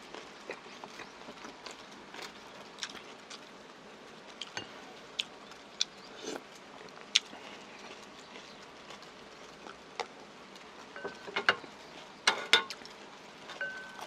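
Close-miked eating: chewing and mouth sounds with scattered sharp clicks of a spoon and chopsticks against ceramic bowls, the loudest cluster of clicks about three-quarters of the way through.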